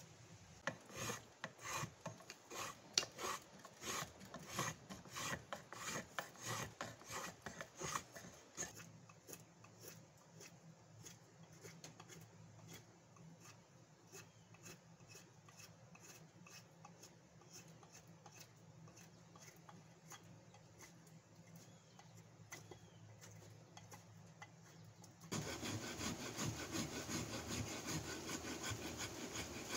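A knife shaving wood from a hickory axe handle, in quick separate cuts for the first eight seconds or so, then fainter and sparser. About four seconds from the end, a louder, fast run of back-and-forth rasping on the wooden handle, taking wood off to fit it to the axe head.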